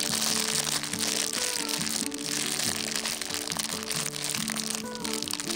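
Background music of held notes, over a steady crackling hiss of sukiyaki simmering in a pot.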